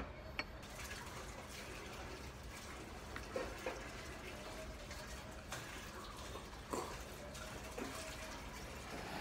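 Steady hiss of background noise with a few soft clinks of wooden chopsticks and ceramic bowls being handled.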